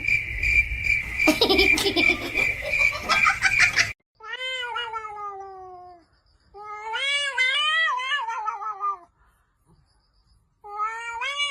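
A domestic cat yowling in long, drawn-out calls: one falling call, then a longer one that rises and falls, and a third starting near the end. Before the first call there are a few seconds of noise with a steady, pulsing high tone.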